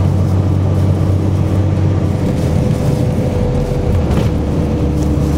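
Engine and road noise of a moving road vehicle heard from inside, a steady low drone with a faint held hum over it.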